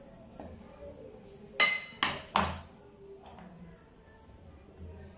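Three sharp knocks in quick succession a little under two seconds in, the first the loudest and ringing briefly: a plastic rolling pin knocking down onto a stone countertop while dough is being rolled out. Faint rubbing and handling noise lies around them.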